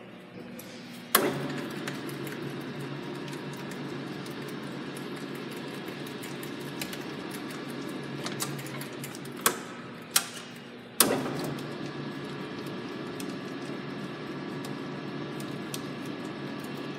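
Reed 4-foot, 12-gauge power slip roll's electric motor and roll drive starting with a sharp clunk about a second in, then running with a steady hum as the rolls turn. Near the middle it shuts off with a couple of clicks, then restarts a second later with another clunk and runs on steadily.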